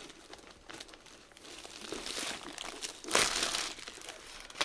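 Clear plastic sleeve crinkling as a rolled diamond painting canvas is handled and pulled out of it, with a louder rustle about three seconds in.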